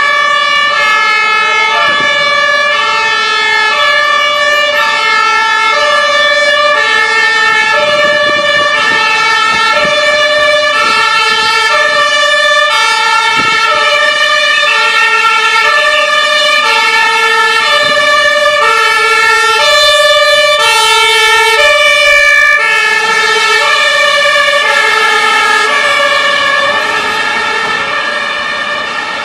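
Two-tone emergency-vehicle sirens blaring, alternating between a high and a low note at about one change a second, with more than one siren sounding at once. They grow a little quieter near the end.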